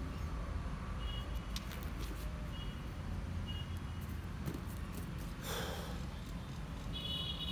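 Steady low background rumble with a few faint, short high chirps. Hands press and rustle loose potting soil, with one brief rustle about five and a half seconds in.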